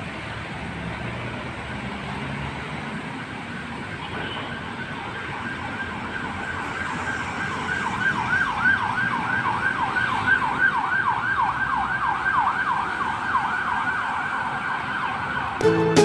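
Emergency-vehicle siren in a fast yelp, sweeping up and down several times a second, starting about four seconds in and growing louder as it nears, over steady road-traffic noise. Music cuts in just before the end.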